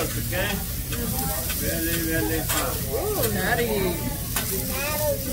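Food sizzling on a hibachi griddle, with a few sharp clicks and the voices of diners talking in the background.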